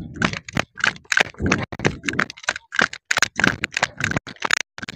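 Hurried footsteps crunching on a dry dirt path, a quick, irregular run of crackling steps mixed with the rustle of dry grass brushing past and handling noise from a jolting handheld camera.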